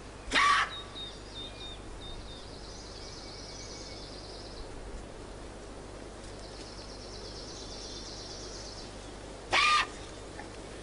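Forest sounds: two loud, short, harsh caw-like calls about nine seconds apart, over high, rapidly pulsing trills that come and go.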